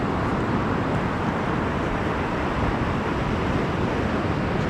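Steady rush of rough surf breaking on the beach, mixed with wind rumbling on the microphone.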